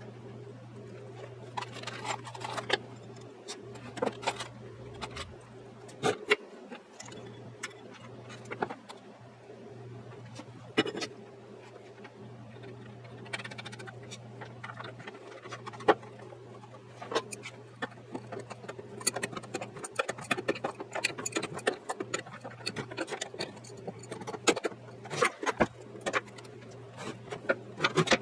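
Irregular clicks, taps and scrapes of hand work on the metal of an anvil/vise, scattered throughout, over a steady low hum.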